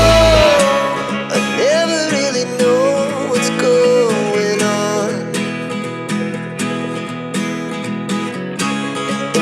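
Background music: a song with strummed acoustic guitar and a gliding melody line over it. The deep bass drops out about half a second in.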